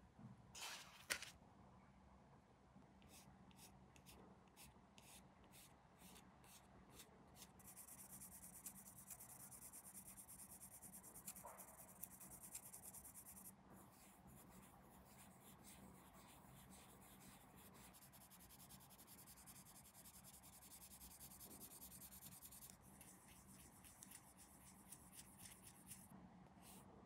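Faint hand work on small plastic scale-model kit parts: a sharp click about a second in, light ticks about two a second, then stretches of steady rubbing.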